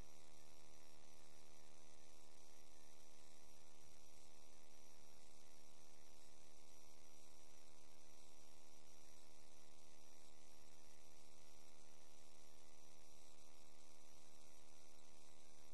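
Steady electrical mains hum with a hiss of static and no change in level, the interference picked up by a sewer inspection camera's recording electronics.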